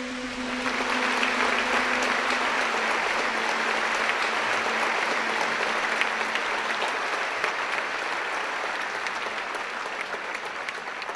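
Theatre audience applauding at the end of a Thai classical dance, the clapping swelling in about half a second in and easing off near the end. The ringing last note of the Thai classical ensemble dies away under it in the first few seconds.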